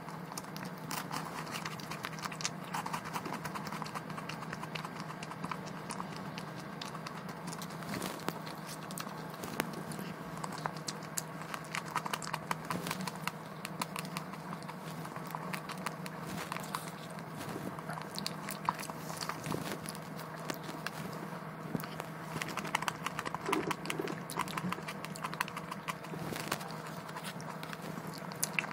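Close-miked eating sounds: biting and chewing a wafer and strawberry tiramisu, with many small clicks and scrapes of a plastic fork in a plastic tray. A steady low hum runs underneath.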